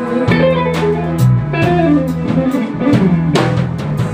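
Band music between vocal lines: drum kit, guitar and bass playing a steady beat.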